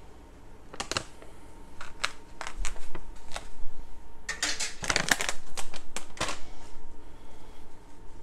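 Kitchen handling sounds: scattered sharp clicks and taps as salt is spooned from a measuring spoon into glass canning jars. About halfway through comes a denser run of clicks and rustling, and paper-towel rustling follows near the end.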